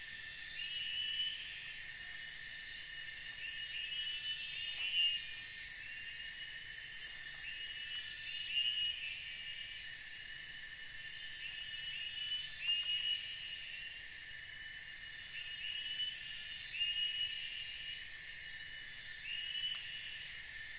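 Forest insect chorus: a steady, high-pitched buzzing and shrilling, with short repeated chirping calls about every second or two.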